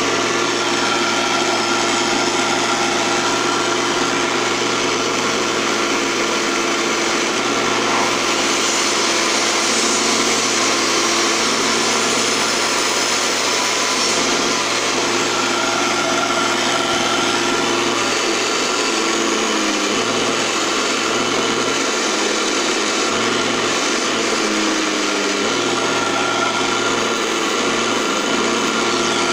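Small benchtop wood lathe running steadily while a hand-held turning tool cuts the spinning wooden blank: a continuous scraping of the cut over the motor's whine.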